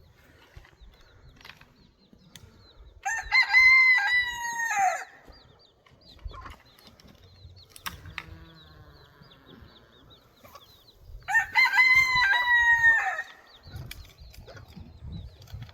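A rooster crowing twice, about eight seconds apart, each crow a loud call of about two seconds that drops in pitch at the end. Faint scattered ticks and rustles fill the gaps between the crows.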